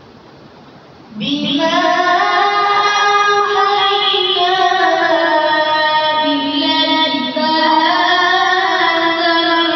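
A boy reciting the Quran in melodic qirat style into a microphone: one long, drawn-out phrase that starts about a second in, its pitch gliding slowly up and down, with a brief breath about seven seconds in.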